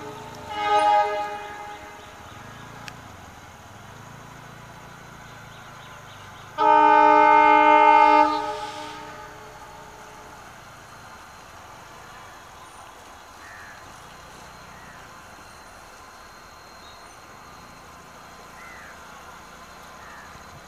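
WDG4 diesel locomotive sounding its air horn twice: a short blast about a second in, then a long blast of about two seconds around seven seconds in. Between and after the blasts there is only a faint steady rumble.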